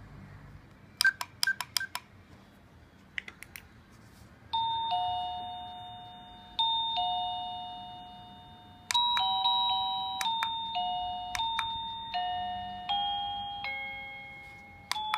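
Arendo wireless digital doorbell receiver: a few sharp clicks from its side buttons being pressed, then its speaker plays a two-tone electronic ding-dong chime twice, followed by a longer melody of chime notes.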